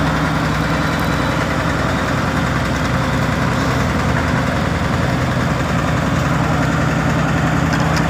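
Tracked asphalt paver's diesel engine running steadily at constant speed, with an even low hum.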